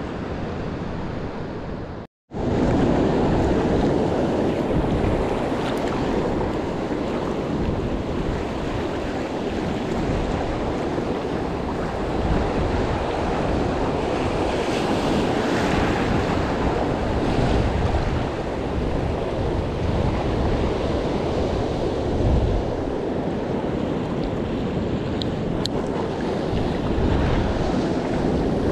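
Ocean surf washing on the shore, mixed with wind buffeting the microphone, a steady rush of noise. The sound cuts out completely for a moment about two seconds in, then returns louder.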